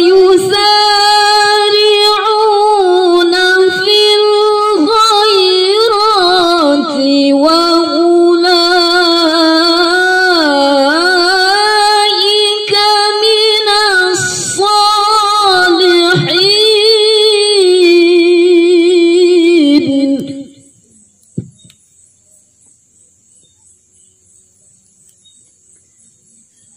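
A woman's voice reciting the Quran in the melodic, drawn-out tilawah style, amplified through a microphone: one long ornamented phrase with held and sliding notes that ends about twenty seconds in, followed by a pause.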